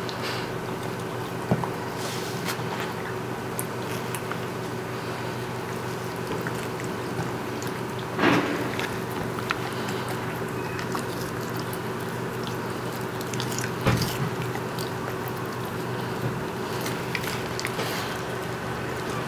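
A Siberian husky's mouth sounds: sparse chewing and lip-smacking clicks after eating a sausage, over a steady background hum. There is a short louder noise about eight seconds in and a low thump near fourteen seconds.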